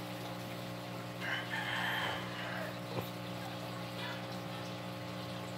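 Steady low mechanical hum. Over it, one higher-pitched sound lasting a little over a second comes about a second in, followed by a short click about three seconds in.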